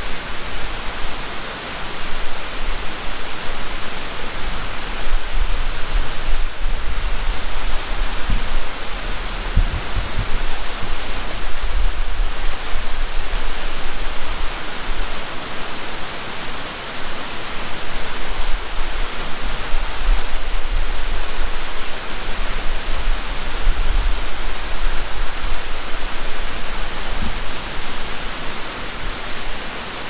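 Waterfall: a steady rushing hiss of water pouring down a rock face, with an uneven low rumble beneath it.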